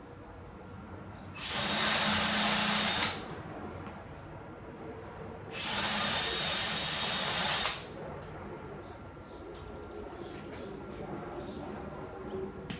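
Two short welds with a small Chicago Electric welder: the arc runs with a steady crackling hiss for about two seconds each time, starting and stopping sharply, the first about a second and a half in and the second near the middle.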